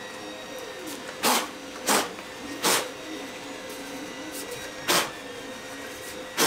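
Sandpaper rubbed by hand over a 3D-printed plastic helmet in five short, irregularly spaced strokes. A faint steady hum runs underneath.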